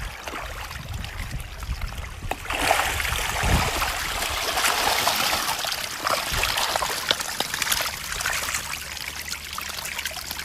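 Shallow running water trickling, growing louder about two and a half seconds in, with scattered small clicks.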